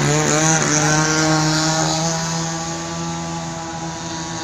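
Grass-cutter (brush-cutter) engine driving a remote-control boat at speed, running with a steady pitch that wavers briefly at first, then getting gradually quieter.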